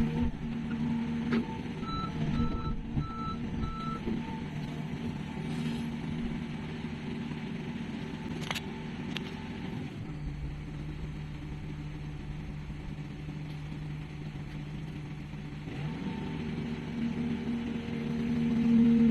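Heavy construction machine's diesel engine running steadily, with its reversing alarm sounding five short beeps about two seconds in. A couple of sharp clicks come about halfway through.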